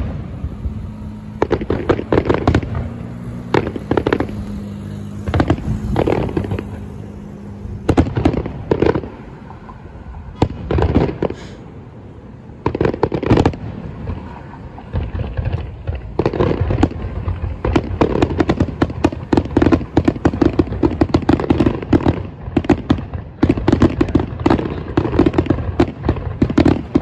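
Aerial firework shells bursting one after another: sharp bangs with crackling. From about halfway through the bangs come faster and almost without a break, the finale of a fireworks display.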